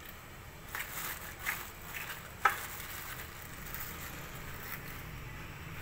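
Eggs being cracked into a dish: a few light taps and clicks of eggshell, with one sharper crack about two and a half seconds in.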